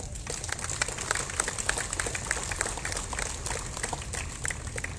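A crowd applauding, many separate hand claps in a steady patter.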